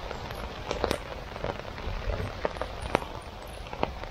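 Heavy rain pattering steadily on a tarp and the wet forest floor, with scattered sharp drips. A stream of rainwater pours off the tarp's edge and splashes onto the soaked ground.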